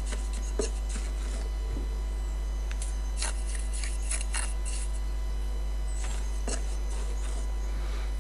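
Mason's steel trowel scooping mortar from a plastic tub and spreading it onto a brick: a few short, faint scrapes and taps. A steady low hum underlies them and is the loudest thing throughout.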